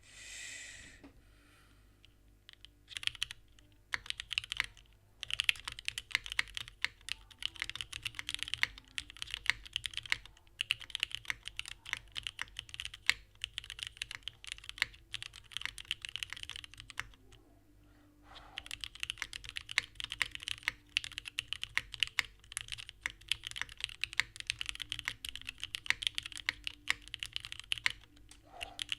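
Typing on a gasket-mounted Singa Kohaku R2 keyboard with vintage West German Cherry MX Black linear switches, unlubricated but filmed and spring-swapped, on an aluminium plate. A fast, dense stream of keystrokes starts a few seconds in, with a short pause about two-thirds of the way through.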